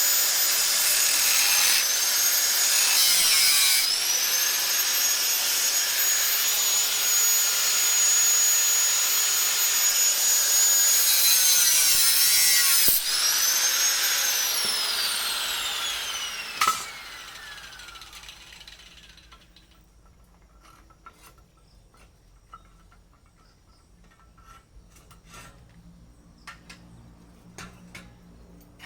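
Electric angle grinder working the steel of an old saw blade: a loud high whine whose pitch dips briefly under load a few times. About 14 seconds in it is switched off and winds down, the whine falling steadily in pitch until it fades. Faint light metal taps and clicks follow.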